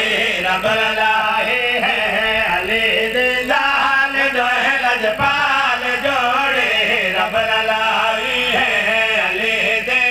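A man chanting a verse of a Punjabi majlis recitation in a drawn-out, melodic voice into a microphone, his voice amplified.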